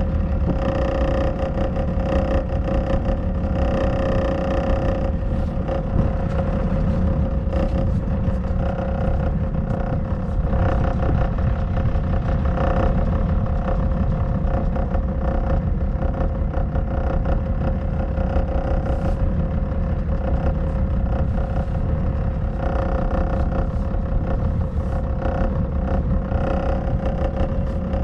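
Small pleasure boat's engine running steadily under way, a constant hum over a low rumble.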